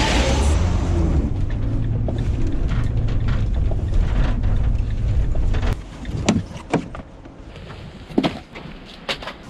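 Delivery van rumbling low for about six seconds, then dropping away, followed by a few separate knocks and clunks.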